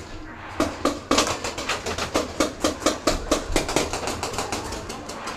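Rapid paintball marker fire: a fast string of sharp shots, about six or seven a second, starting about half a second in and thinning out after about four seconds.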